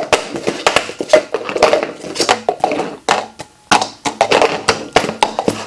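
Clear plastic cups clacking against each other and onto wooden tabletops as they are stacked fast into a pyramid, a quick irregular run of light knocks and clicks.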